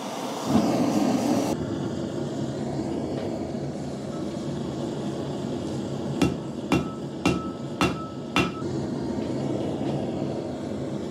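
Propane venturi forge burner running with a steady rushing noise, loudest in the first second and a half as it is lit with a torch. From about six seconds in, a hammer strikes hot steel on a Burlington anvil five times, about half a second apart, each blow ringing.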